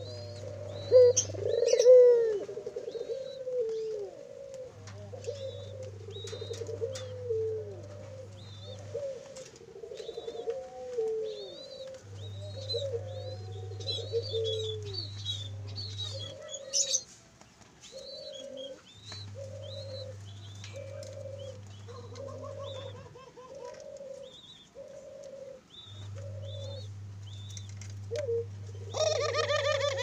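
Caged Barbary doves cooing, a low, arched call repeated about once a second for long stretches, with small birds chirping high in the background. A low steady hum comes and goes in stretches of a few seconds.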